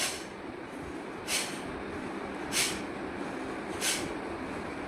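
Forceful breaths of bhastrika pranayama: four short, sharp hissing exhalations through the nose, evenly spaced about 1.3 seconds apart.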